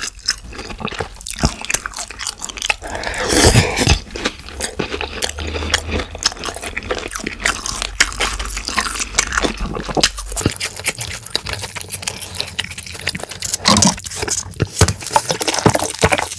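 Close-miked chewing and crunching of battered fried pork in sweet-and-sour sauce (tangsuyuk), with wet mouth clicks; the loudest crunching comes a few seconds in.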